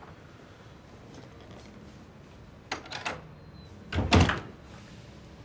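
Interior door being shut: a few light clicks, then a heavy thump as it closes about four seconds in.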